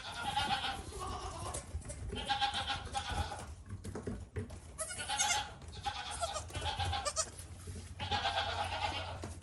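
Goats bleating: about four long, wavering bleats with short pauses between them.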